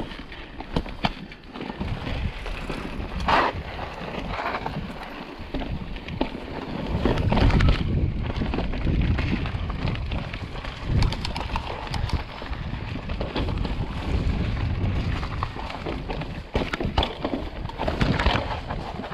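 Mountain bike being ridden along a dirt trail: tyres on dirt and the bike rattling and knocking over bumps, with wind rushing over the microphone. The noise picks up after about two seconds and again around seven seconds.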